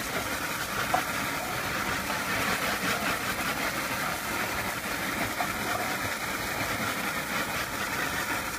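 A strong jet of water from a pump-fed garden hose nozzle spraying steadily onto rose foliage and a cloth backdrop, making a constant hiss without a break.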